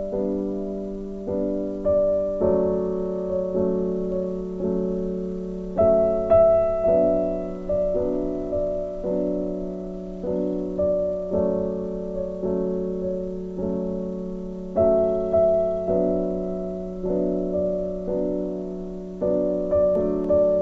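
Background music: slow, gentle piano, notes and chords struck about once a second and left to ring and fade.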